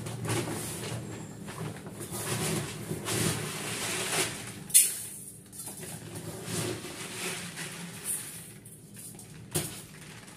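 Rice being scooped by hand from a plastic sack into an aluminium pot: the bag rustles and the grains pour, with a sharp knock about five seconds in and another near the end.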